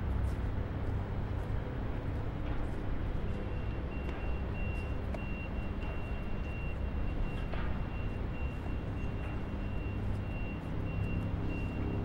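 Vehicles driving on a road: a steady low traffic rumble. A faint, high, pulsing tone joins about three seconds in.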